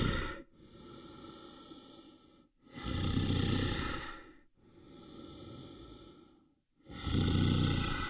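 A large animal breathing heavily and raspily in a slow rhythm: loud breaths at the start, about three seconds in and about seven seconds in, with quieter breaths between them.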